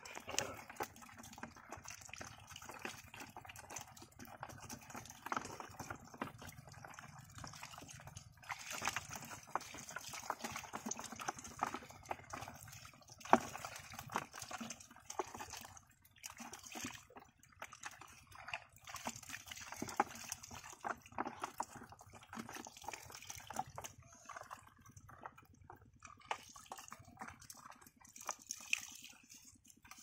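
Hands working in wet mud and shallow water, with irregular small splashes, squelches and drips as small fish are picked out and dropped into a plastic jar.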